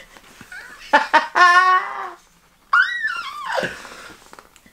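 People laughing and making playful vocal noises: a drawn-out wavering note about a second and a half in, then a high squeal that slides downward.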